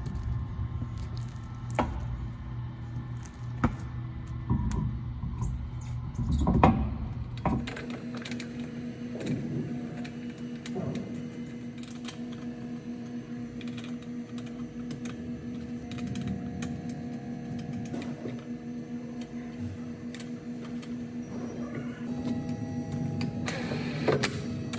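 Car wheel being hung back on the hub and its lug bolts threaded in by hand: scattered metal clicks and clinks over a steady hum, with a heavier knock about six and a half seconds in. Near the end a cordless impact wrench starts running a bolt in.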